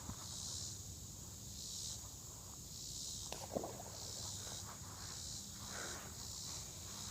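A steady high-pitched chorus of insects that swells and fades in slow pulses, with a few faint rustles and small knocks.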